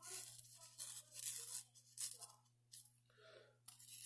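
Freshly sharpened Buck 119 knife edge shaving arm hair: a run of short, crisp scraping strokes, about six in four seconds, over a faint steady hum.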